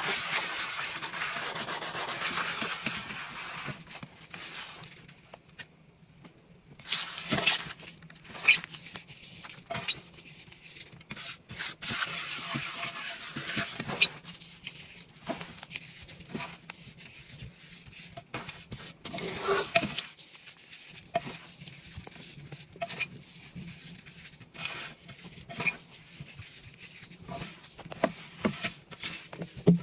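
Scrubbing with Comet scouring powder and laundry detergent: rough rubbing in bouts, with a pause a few seconds in and scattered sharp taps and clicks.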